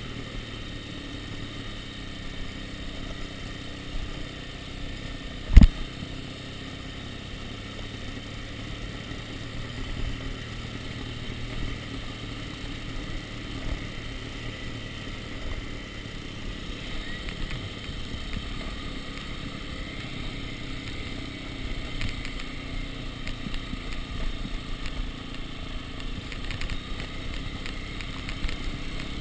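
Dirt bike engine running steadily as the bike rolls down a cobblestone track, heard from a chest-mounted camera. A single sharp thump about five and a half seconds in.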